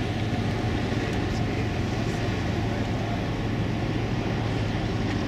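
A vehicle's engine running steadily: an even low hum with a rumbling wash of noise over it.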